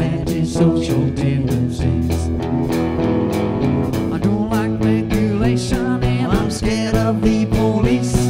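Rock band playing live: electric guitars and bass over drums keeping a steady beat.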